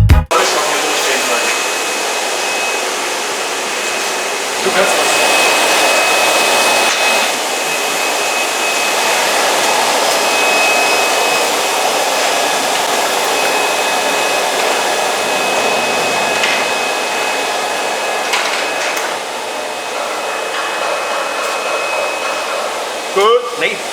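Steady, loud rushing noise of blown air, like a blower running; it gets a little louder about four and a half seconds in, with a faint thin high whistle now and then.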